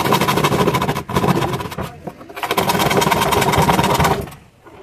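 Hand saw cutting through a plywood sheet: rapid rasping back-and-forth strokes. The sawing pauses briefly twice and stops shortly before the end.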